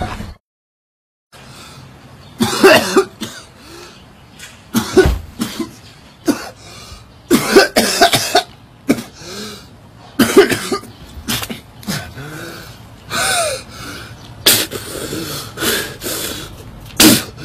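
A man coughing hard in a string of fits a couple of seconds apart, with strained breaths between them: the cough of a man sick with lung disease.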